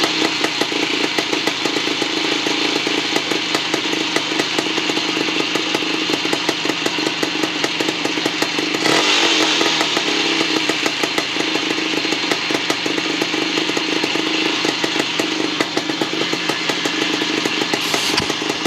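Freshly rebuilt 1975 Bultaco Sherpa T 350's single-cylinder two-stroke engine running steadily, with a brief rise in revs about halfway through.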